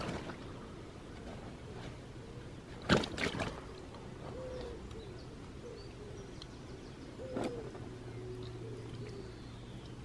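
A pigeon cooing softly in a series of short curved calls. There is a sharp knock about three seconds in and a smaller one later, likely from handling on the unhooking mat.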